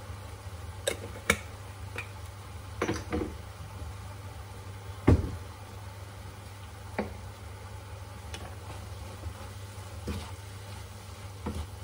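Minced meat frying quietly in a non-stick pan while turmeric is spooned in and stirred, with scattered taps and knocks of utensils against the pan. The loudest is a dull thump about five seconds in. A steady low hum runs underneath.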